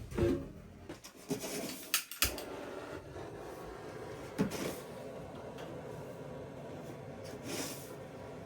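A few scattered knocks and clicks of objects being handled over a steady low background, about five in all, with a pair close together about two seconds in.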